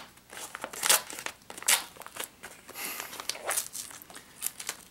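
Thick wrapping of duct tape over cardboard being cut and pulled open with a knife: irregular crinkling and ripping strokes, the loudest about one second and nearly two seconds in.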